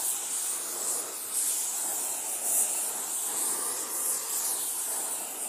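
Oxy-acetylene torch with a rosebud heating tip, its flame hissing steadily as it preheats a cast iron piece before welding.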